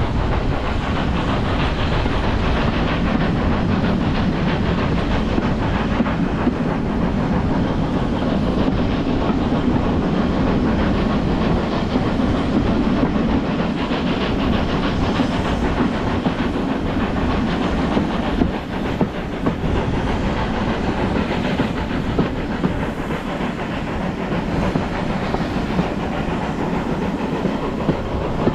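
A train running along the track: a steady rumble with the clickety-clack of wheels over the rails.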